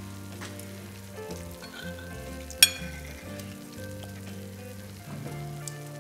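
Soft background music under a steady hiss, with the clink of a metal spoon against a ceramic plate about two and a half seconds in, the loudest sound, and a few fainter scraping clicks of spoons in the food.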